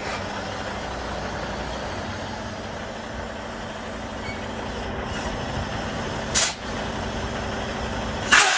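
Semi-truck tractor's diesel engine running as it pulls out from under a dropped trailer, with two short air hisses from the air brakes, about six seconds in and again near the end.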